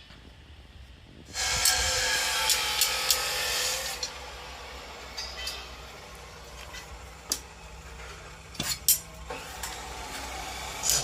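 Metal being worked by hand: a loud scraping burst with metallic ringing about a second in, lasting two to three seconds, followed by lighter scraping and scattered metal clinks.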